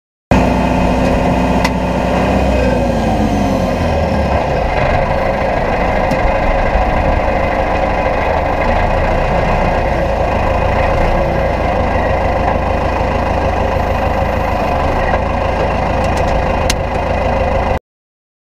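Tractor diesel engine running steadily, its note dropping a couple of seconds in, with two sharp clicks, one near the start and one near the end.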